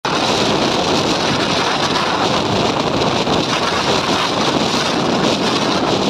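Strong gale wind blowing over a fishing boat's deck and buffeting the microphone, over a rough, breaking sea. A steady, loud rush of noise.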